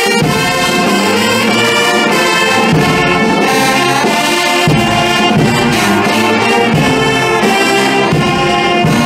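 Brass band playing, trumpets and trombones sounding together in long held notes.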